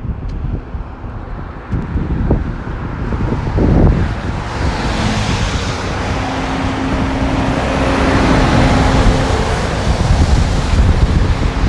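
Wind buffeting the microphone, with road traffic passing on wet pavement: a broad tyre hiss swells from about four seconds in and stays up to the end.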